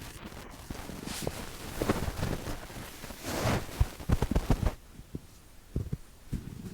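Fishing gear being handled: irregular rustling and light knocks, with two short scraping sounds about two and three and a half seconds in, then only scattered soft thumps.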